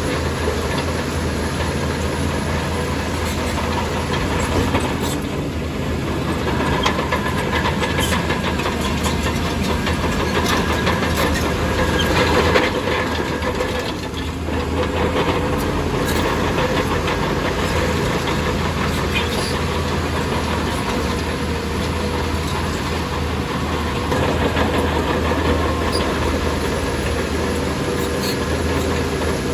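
Heavy diesel earthmoving machinery running steadily under load, with scattered metallic clanks and rattles over the engine.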